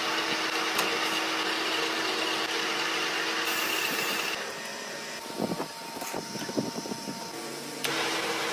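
A metalworking machine running steadily, with a constant hum and a high whine over a hiss, then dropping away for a few seconds of metal knocks and clinks, then running again near the end.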